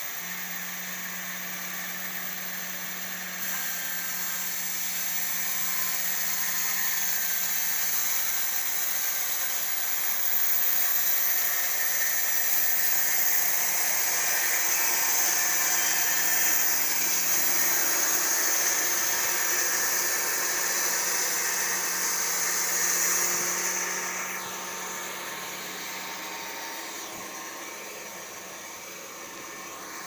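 Altai 900 band sawmill running: a steady electric-motor hum under the noise of the band blade sawing lengthwise through a log. The sawing noise builds over the first few seconds, is loudest through the middle and eases off about two-thirds of the way through.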